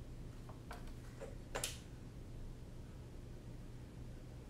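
A few faint, short clicks, the sharpest about one and a half seconds in, over a low steady hum.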